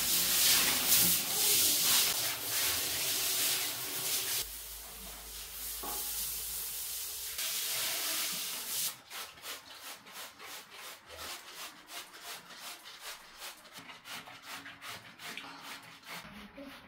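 Water from a handheld showerhead spraying onto a bathtub and a tiled floor, a steady hiss. From about nine seconds in it gives way to a run of quick, short sprays, about three a second, from a trigger spray bottle of bathroom cleaner.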